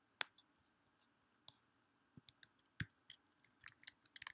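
Computer keyboard typing and clicks: scattered, irregular key presses that bunch into a quick run of keystrokes near the end.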